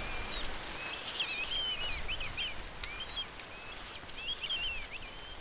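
Songbird singing: quick, twittering phrases of high chirps and trills, four or so bursts with short gaps between them, over a soft outdoor hiss.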